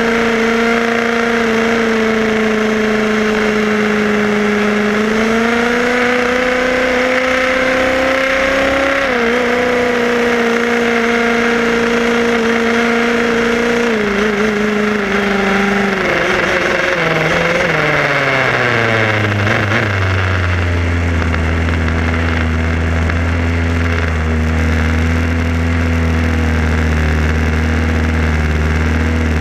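HPI Baja 5B SS RC buggy's small two-stroke petrol engine, heard from on board, running steadily at speed. Its pitch rises a little, then falls away from about halfway through as the buggy slows. It settles into a low, steady idle for the last third.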